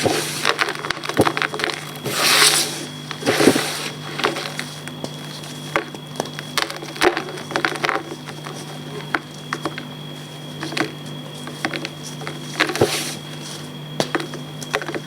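Reformed gym chalk being crumbled and crushed, with a run of small crackles and snaps and a few louder crunches, two early on and one near the end.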